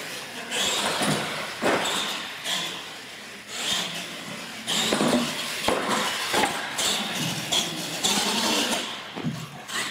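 Radio-controlled monster truck driving around on a concrete floor, its motor and gears whining in repeated surges as the throttle is worked, with an occasional knock.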